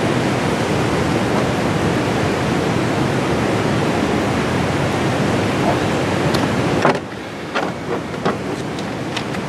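Steady rush of river rapids, dropping suddenly about seven seconds in to a quieter hiss. A few light clicks and knocks of fish-cleaning work on a plastic cutting board follow.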